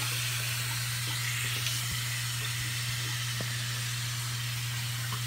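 Steady, even hiss over a constant low hum, with a couple of faint small knocks.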